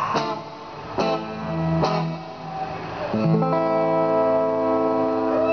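Guitar strummed in a few separate strokes that close a song, the last chord left ringing for about two seconds.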